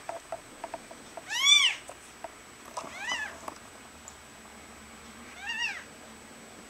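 A day-old kitten crying three times, thin high mews that rise and fall in pitch, the first the loudest.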